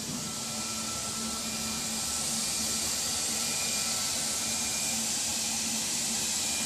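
ATC CNC router's suction-cup panel loader running while it moves an MDF sheet: a steady hiss with a steady low hum that comes in at the start.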